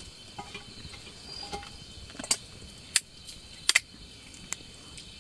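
Crickets and other night insects chirring steadily, with a few sharp clicks and cracks scattered through, the loudest a little past two, three and just short of four seconds in.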